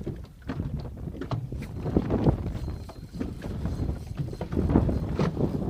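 Wind buffeting the microphone on an open boat, a steady low rumble, with scattered knocks and clatter, loudest about two seconds in and again near the end.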